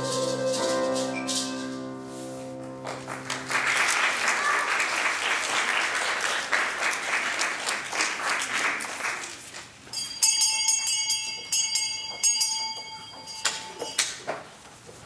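Children's choir holding the final chord of a song, which breaks off about three seconds in, followed by audience applause. Near the end the clapping thins out and a few seconds of high, steady ringing tones follow.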